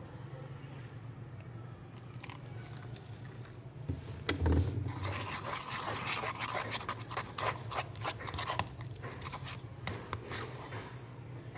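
Hands kneading and stretching freshly activated slime, making a dense run of sticky clicking and squelching that starts after a knock about four seconds in. A steady low hum runs underneath.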